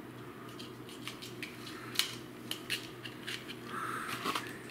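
Light plastic clicks and taps from handling an egg and fitting it into a handheld plastic egg cracker, with the sharpest click about two seconds in.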